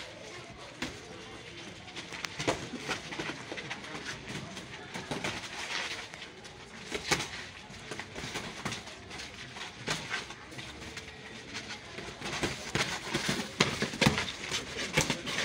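Boxing gloves landing punches during sparring: scattered sharp slaps and thuds, irregular, sometimes several in quick succession.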